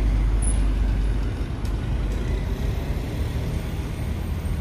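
Road traffic passing close by: a deep vehicle rumble that fades away about a second in, leaving a steady hum of traffic.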